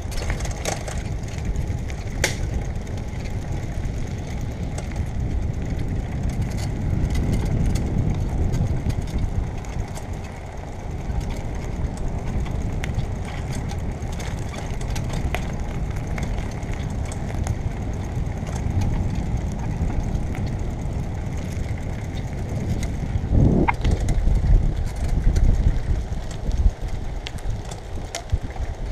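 Bicycle rolling along a path, its tyres giving a steady low rumble with scattered small clicks and ticks. It grows louder from about 23 seconds in, where a brief rising whine is heard.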